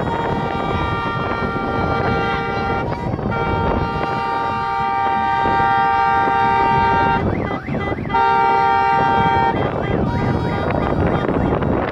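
Car horns honking in long held blasts from vehicles in a slow procession, breaking off briefly about three seconds in and again near seven seconds, over the rumble of passing traffic.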